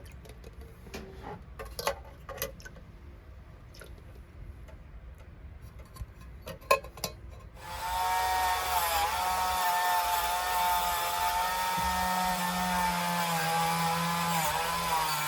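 A few light clicks of small parts being handled. About eight seconds in, a small electric machine switches on and runs with a steady buzzing whine whose pitch wavers slightly.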